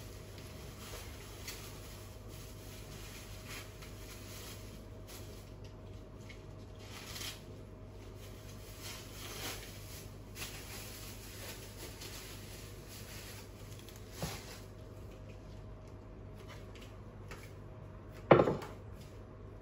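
A covered enamelled cast-iron pot of vegetables cooking on a stove, heard as a steady low hum with a faint hiss. There are a few soft knocks, and one sharp knock near the end is the loudest sound.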